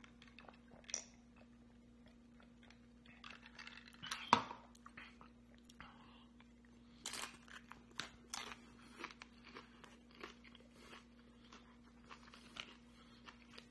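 Close-up crunching of a crisp fried-tortilla tostada topped with fish ceviche being bitten and chewed: irregular sharp crunches, thickest about seven to nine seconds in, then quieter chewing clicks. One louder thump about four seconds in, and a faint steady hum underneath.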